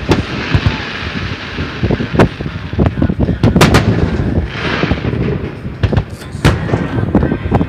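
Fireworks display: a rapid, irregular run of loud booms and sharp bangs from bursting shells, with a brief hiss about halfway through.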